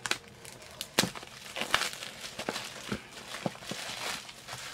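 Plastic shrink-wrap being peeled and crumpled off a cardboard box, a run of irregular crinkles and small sharp crackles.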